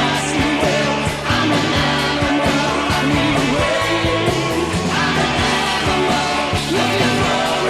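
Hard rock demo recording from 1984 with a steady drum beat, bass, electric guitar and a male lead vocal singing.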